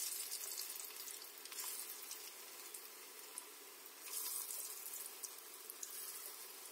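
Lauki kofta balls deep-frying in hot oil, a steady sizzle. It swells briefly as more balls are dropped in, about a second and a half in and again about four seconds in.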